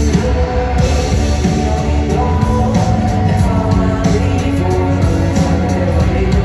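Live band music with a male singer over drums, loud and continuous, heard from the crowd in an arena with its echo.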